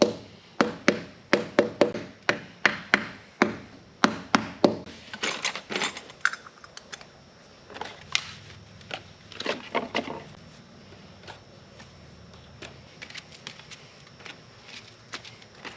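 Repeated sharp knocks, about three a second, for the first five seconds, followed by lighter scattered clicks and rattles that thin out to occasional faint ticks after about ten seconds.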